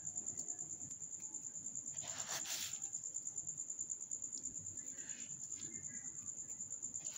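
Sugar poured onto flour in a bowl, a short hiss about two seconds in, over a steady high-pitched pulsing trill in the background.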